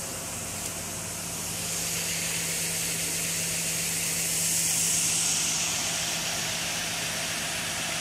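Steady machinery running: a low, even hum under a strong hiss, swelling a little about two seconds in and again around five seconds.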